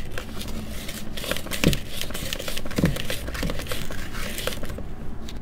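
Irregular scraping and clicking of hand-mixer beaters being stirred by hand through powdered sugar and creamed butter in a plastic bowl, mixing the sugar in before the beating starts.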